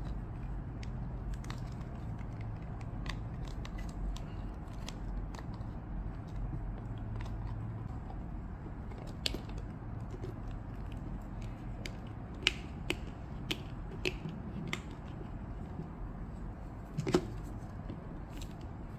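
Clear plastic parts of an Arley Z10 Ultra wearable breast pump's collection cup being handled and fitted together: scattered light clicks and taps, the loudest about seventeen seconds in, over a steady low hum.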